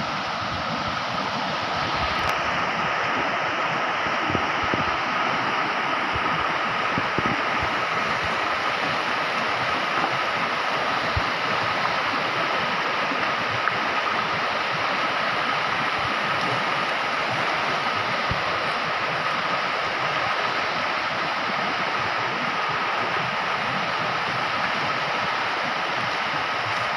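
Shallow stream flowing over rocks: a steady rush of water.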